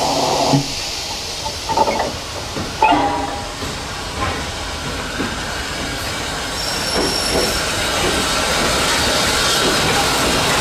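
SECR H class steam tank locomotive No. 263 with steam hissing steadily, a few short knocks and clanks in the first three seconds, and the hiss growing slightly louder near the end.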